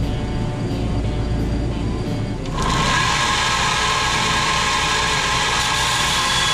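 Low steady hum, then from about two and a half seconds in a bench belt grinder running loudly against a square steel tube, a steady grinding noise with a high whine.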